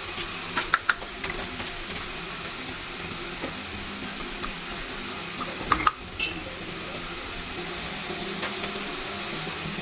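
Hard plastic PVC tap parts clicking and clacking as they are handled and screwed together, with a few sharp clicks near the start and the loudest cluster about six seconds in, over a steady background noise.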